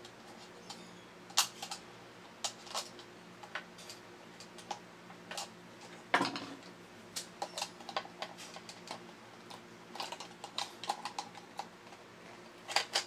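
Irregular clicks, taps and small knocks of toy robot parts being handled and worked apart during a teardown, with one louder knock about six seconds in.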